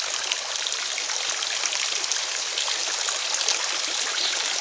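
Backyard pond's water feature running steadily: an even trickling rush of water.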